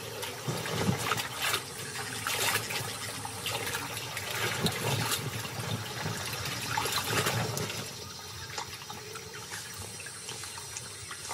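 American black vultures scrambling and flapping over a caiman carcass in shallow water: irregular splashing, sloshing and scuffling, quieter after about eight seconds.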